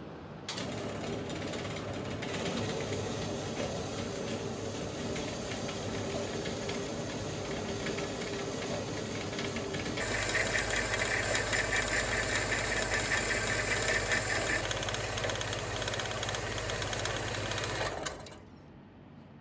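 Horizontal metal-cutting bandsaw running, its blade cutting through rectangular steel tubing. It starts just after the beginning, runs louder from about halfway, and stops a little before the end.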